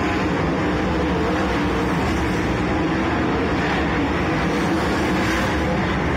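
A pack of sprint cars racing on a dirt speedway oval, their methanol-fuelled V8 engines running hard together in a continuous, loud engine noise.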